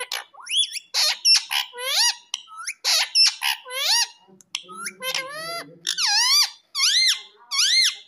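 Indian ringneck parrot (rose-ringed parakeet) calling in a rapid run of high, squeaky notes, each rising and then falling in pitch. The last few calls come about one a second, evenly spaced.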